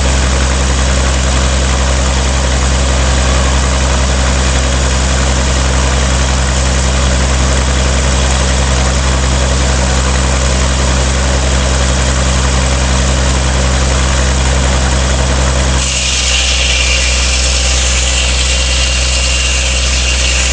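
Engine running steadily with a low, even hum, the power for a restored sawmill. About three-quarters of the way through, a high hiss with a thin steady whine joins it.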